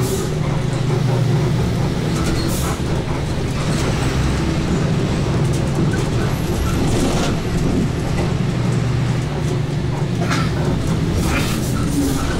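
Overland truck's engine running steadily as the truck drives, a constant low drone heard from inside the vehicle, with a few brief sharper noises over it.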